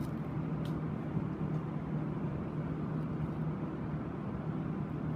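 Steady low background hum with a faint click about two-thirds of a second in.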